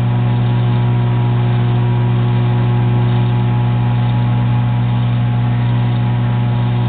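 Microwave oven running: a steady electrical hum with the fan, heating marshmallow Peeps.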